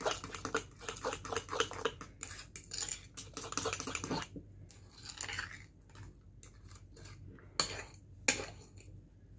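A metal fork stirring and whipping a thick mayonnaise sauce in a small bowl, clicking and scraping against the bowl. The strokes come fast for the first few seconds, then slow down, with two louder knocks near the end.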